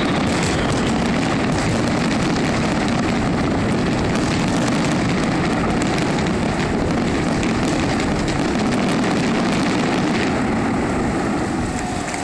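Continuous dense crackling roar from the closing barrage of a fireworks finale, blending into a large crowd applauding and cheering, easing slightly about ten seconds in.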